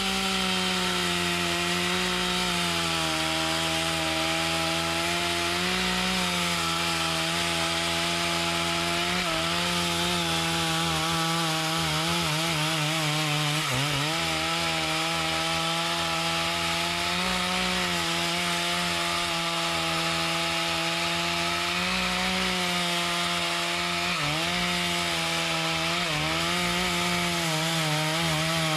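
Two-stroke chainsaw running at high revs while cutting mahogany, its engine note steady but dipping briefly a few times as the chain bites under load.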